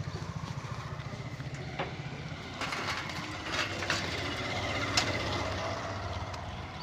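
A small engine idling with a rapid, even pulse that fades after about two and a half seconds, followed by scattered clicks and a sharp knock about five seconds in.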